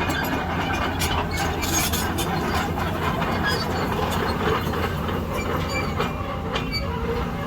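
Volvo excavator working, its diesel engine running steadily under irregular metallic clanks and knocks.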